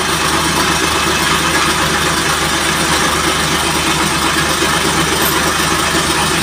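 Boom truck engine idling steadily.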